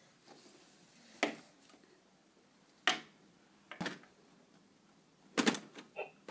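A few separate sharp knocks and taps about a second or more apart, with a quick cluster near the end, from toddlers knocking a small plastic toy and their hands against a window pane and its sill.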